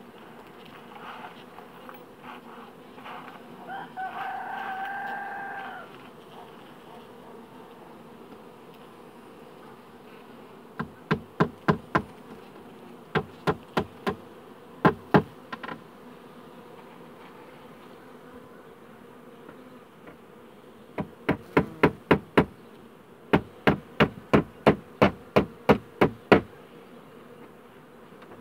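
Honeybee colony humming steadily, with a queen piping: one long held note about four seconds in, then two runs of short, sharp toots, about four a second, partway through and near the end. Piping of this kind is a sign of a colony about to swarm.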